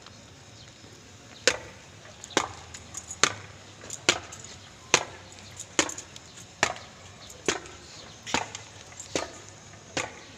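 Boots stamping on pavement in unison, a troop marching in step: evenly spaced sharp knocks, a little faster than one a second, starting about a second and a half in.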